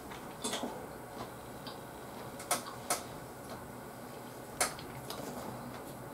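Chopsticks and leaf-wrapped sushi being handled over a plate: a few sharp clicks, the loudest three about two and a half, three and four and a half seconds in, with softer ticks and light handling noises between.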